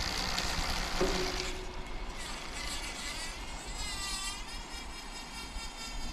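Rear bicycle wheel with a greased Shimano XTR FH-M9111 freehub spinning freely, giving a high buzzing whir with no clear ratchet clicks. About a second and a half in, it turns to a whine whose pitch wavers up and down.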